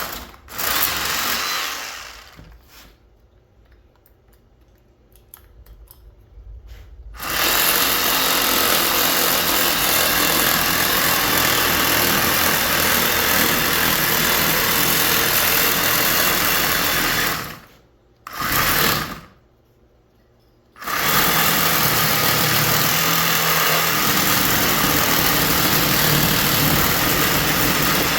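Power tool running in long steady stretches with short stops between, a brief burst near the start and another midway. It is cutting the copper ends off mini split air conditioner radiator coils to leave clean ACRs.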